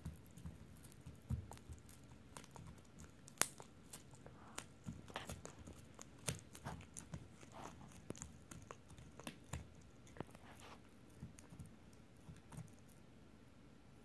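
Italian Greyhound chewing a knotted rawhide Dingo Bone: irregular wet crunches, tears and sharp clicks of teeth on rawhide, with one louder crack about three and a half seconds in, the gnawing thinning out near the end.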